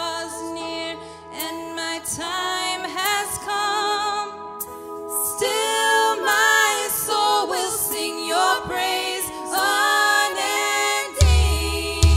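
Worship band music: singing over sustained held chords, with a heavy bass and drum low end coming in about a second before the end.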